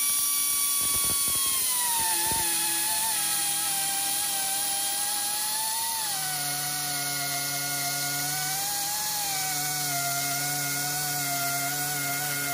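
Electric edge-chamfering trimmer running at high speed with a steady whine. About a second and a half in its pitch drops as it bites into a wood edge, and it wavers up and down as the cut goes on.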